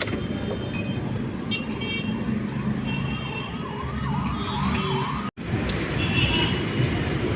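Road traffic noise with vehicle engines running. Partway through, a quickly repeating rising-and-falling siren-like warble comes in, along with a few short higher tones like horns.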